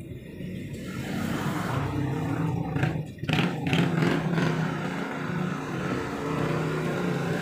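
An engine running with a steady low drone that swells about a second in, with a few sharp knocks of the metal radiator being set down on a bucket about three to four seconds in.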